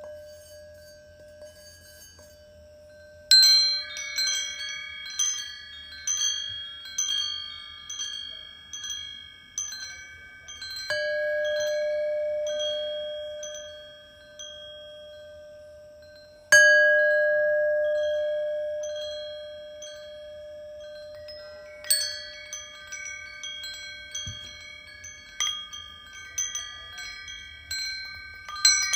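Healing-sound chimes: runs of struck bright metal chime notes ringing over a singing bowl's steady hum. The bowl tone swells and fades, and a single loud strike about two-thirds in rings on and slowly dies away.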